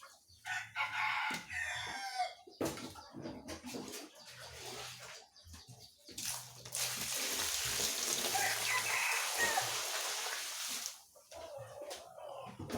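Wet scrubbing of a soaked carpet with a rotary floor polisher: the water swishes and hisses under the brush, with a faint intermittent motor hum. A chicken clucks and calls over it.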